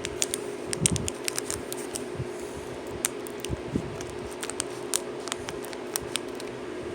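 Scissors cutting open a Pokémon card booster pack's wrapper: a scattered run of short, sharp snips and clicks over a steady low hum.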